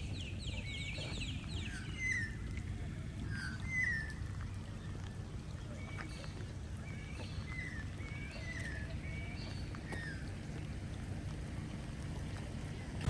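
Birds calling: repeated short chirps and whistled notes, with a fast trill in the first second or so, over a steady low rumble.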